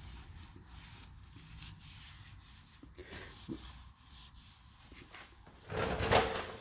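Cloth rag, soaked in vegetable oil, rubbing and wiping over a bicycle's painted metal frame, soft and faint. A louder, brief rustle comes about six seconds in.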